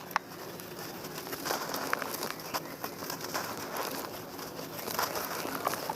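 Chunks of dry, gritty mud being crumbled, with a steady crunchy crackle broken by scattered small sharp cracks.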